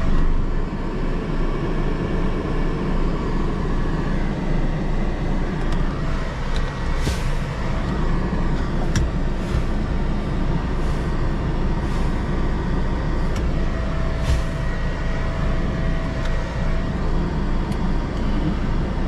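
Iveco truck's diesel engine running, heard from inside the cab as the truck moves slowly, with about six short hisses spread through the middle of the stretch.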